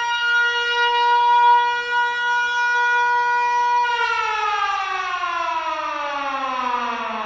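A siren sound: one steady tone held for about four seconds, then falling slowly in pitch as it winds down, like a mechanical siren spinning down.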